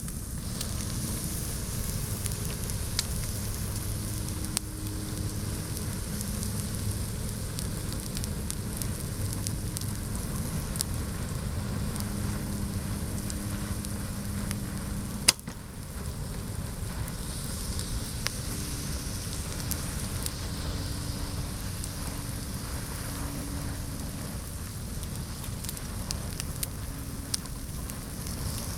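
Dishwasher running: a steady crackling hiss over a low hum. A single sharp click comes about halfway, with a brief drop in level after it.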